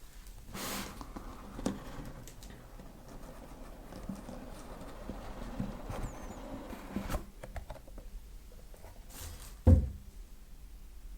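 Keyboard packaging being handled during unboxing: soft rustling, light taps and knocks of box and wrapping, with one louder thump near the end.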